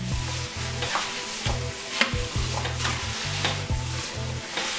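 Grain mash of malt and rice hulls being stirred in the brew kettle, a wet, rustling churn with a few short scrapes, over background music with a bass line.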